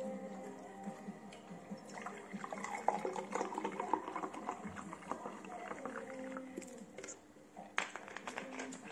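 A dark drink poured into a glass tumbler. The pour starts about two seconds in and runs for about five seconds as the glass fills.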